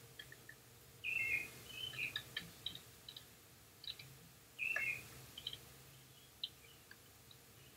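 Faint, high, short chirps in a few bursts, the loudest about a second in and just before five seconds in, each falling slightly in pitch, with light clicks scattered between.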